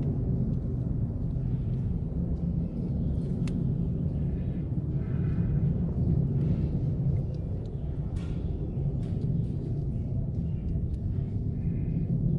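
A steady low rumble with a few light clicks and taps scattered through it.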